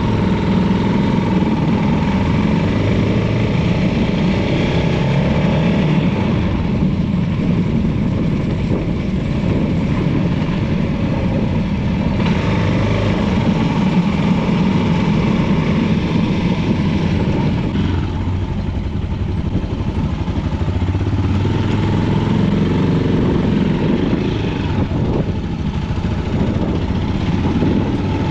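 Motorcycle engine running steadily while being ridden, its note rising and falling a little as the speed changes.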